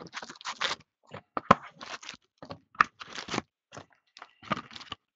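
Trading-card hobby box being opened: plastic shrink wrap crinkling and tearing, with cardboard scraping and sharp snaps as the packs are pulled out.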